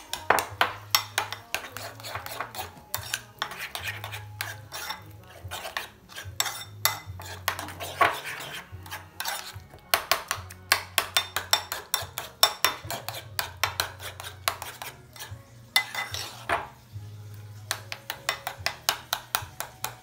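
A spoon or fork stirring a mayonnaise-based mixture in a bowl, clinking rapidly against the bowl in bursts with short pauses.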